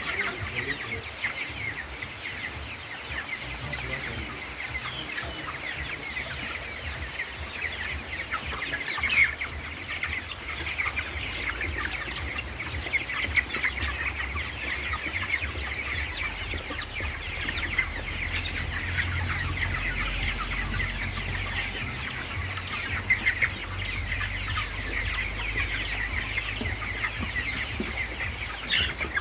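A large flock of broiler chickens in a shed, calling continuously in a dense chorus of short, overlapping peeps and clucks. A low rumble joins under the calls about halfway through.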